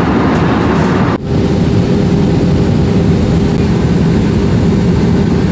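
Loud, steady roar of jet engines heard from inside an airliner cabin. About a second in it cuts abruptly to a second, equally loud stretch of the same engine noise.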